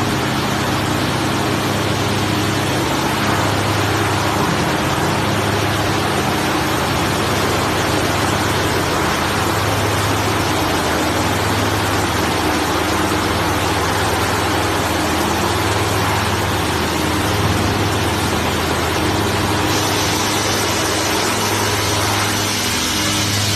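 Double-sided wide-belt calibration sanding machine for particle board and MDF running steadily: a constant low hum under a broad rushing noise, with a thin high-pitched hiss joining about twenty seconds in.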